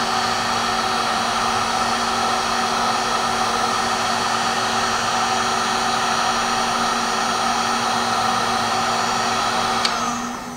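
Electric heat gun blowing steadily, a fan's rushing hiss with a steady whine in it, as it shrinks heat-shrink tubing over soldered wires. Near the end it is switched off with a click and winds down.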